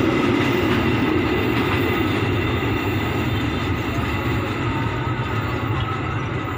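Container freight train's loaded flat wagons rolling away over the rails: a steady rumble and rattle with a faint steady high whine above it, slowly fading as the train recedes.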